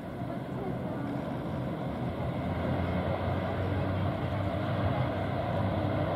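De Havilland Canada Dash 8-400 turboprop airliner's engines and propellers running at high power as it rolls fast along the runway: a steady drone with a low hum that grows louder about three seconds in.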